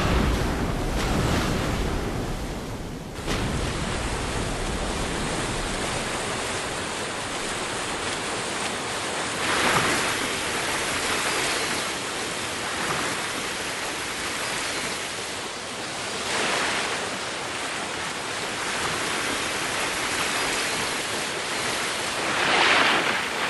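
Sea surf breaking against rocks, heavy and deep for the first few seconds, then, after a cut, a steady rush of falling water like a waterfall or curtain of spray, swelling three times.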